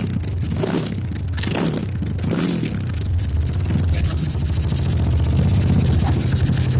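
Honda Tiger single-cylinder four-stroke engine in a CB motorcycle running, its throttle swelling briefly a few times in the first seconds, then held a little higher and louder.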